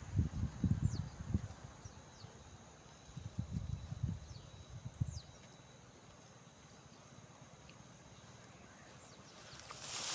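Steady high insect drone, crickets or cicadas, with a few short falling chirps above it. Irregular low rumbles on the microphone in the first half, and a brief rush of rustling noise near the end.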